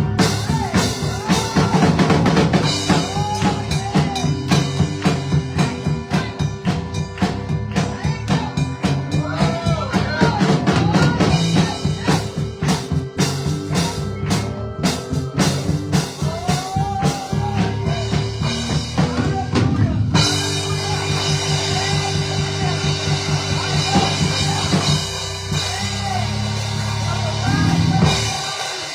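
Live church band playing praise music, with drums beating over held keyboard chords and bass. About twenty seconds in the drums stop and the held chords carry on alone.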